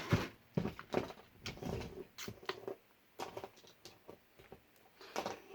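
Small plastic toy parts and packaging being handled: scattered light clicks, taps and rustles with short quiet gaps between them.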